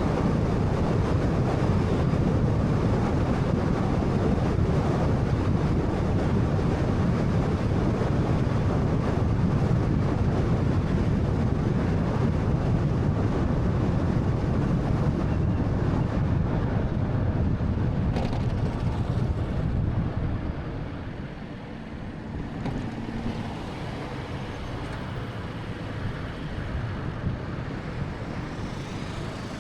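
Road and tyre noise from a moving 2013 Honda Fit: a steady low rumble that turns noticeably quieter about twenty seconds in.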